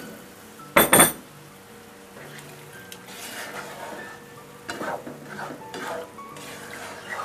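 A metal utensil clattering against a cooking pot about a second in, then stirring and scraping through beef cooking in coconut milk and water, with a faint sizzle from the pot.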